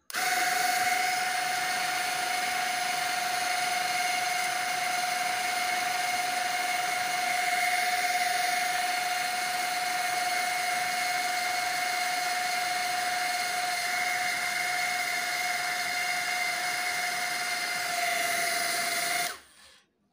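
Two small coreless DC motors spinning plastic propellers in a homemade mini cooler, running with a steady high-pitched whine that stops suddenly near the end when switched off.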